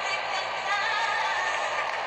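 Stadium crowd singing and chanting, a steady dense wash of many voices with a faint wavering tune.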